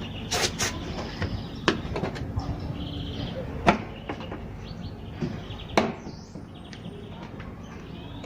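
Several sharp knocks and clicks at irregular intervals, with rubbing in between, from hands and tools working the torn rubber door boot of a washing machine loose.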